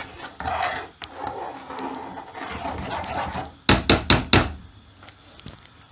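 Four quick, sharp knocks of a utensil or cup against the curry pan, about a second and a half in all, after the passata has gone into the curry.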